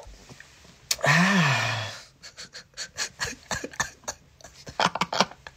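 A man's long, breathy, satisfied "haah" sigh of about a second, its pitch rising then falling, after a taste of tea he has just called delicious. It is followed by a run of faint, quick clicks.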